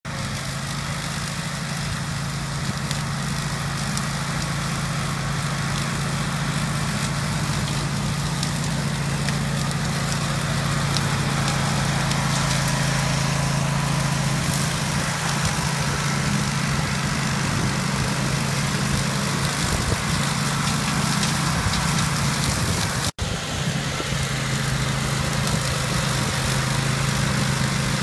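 Grillo Climber 9.18 ride-on mower's engine running steadily under load as it mows long grass, a constant low hum with a broad rushing noise over it. The sound cuts out for an instant about three quarters of the way through.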